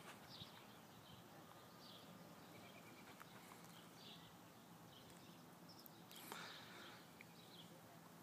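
Near silence: faint outdoor street ambience with scattered faint bird chirps.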